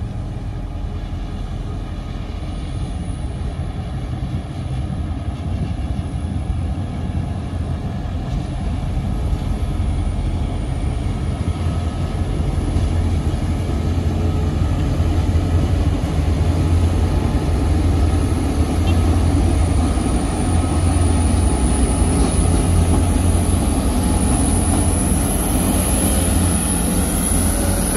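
Two coupled CC 202 diesel-electric locomotives running light past at speed. The engines' low rumble grows louder as they come closer and is heaviest in the middle of the pass. A thin high whine strengthens near the end.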